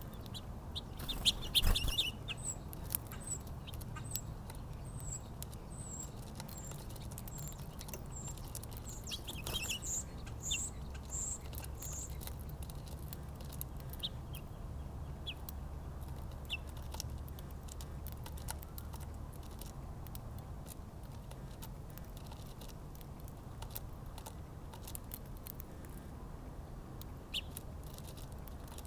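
Small birds calling at a backyard feeder: a brief loud burst of calls, then a run of short, high chirps about two a second that stops about halfway through, with scattered clicks over a low steady rumble.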